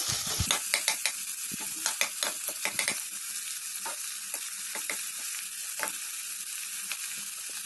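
Chopped onions frying in hot mustard oil, a steady sizzle, while a steel ladle scrapes and clicks against the metal pot as they are stirred, the clicks most frequent in the first three seconds.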